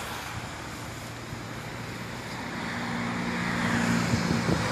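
Engine of a motor vehicle running nearby over steady outdoor background noise, with a low hum coming in about halfway through and growing louder.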